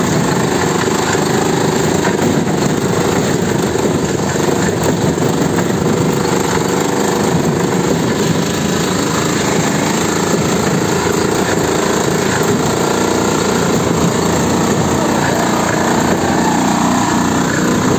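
Homemade tractor's engine running steadily while the tractor drives along, loud throughout.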